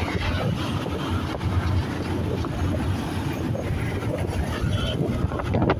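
Riding noise on a moving motorcycle: a steady low rumble of wind on the microphone mixed with the engine running and surrounding road traffic.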